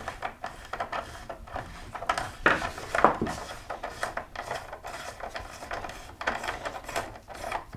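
Metal tool and parts clicking and scraping on a bicycle crankset as the self-extracting cap is unscrewed from a Rotor crank, with a few louder clinks about two and a half to three seconds in.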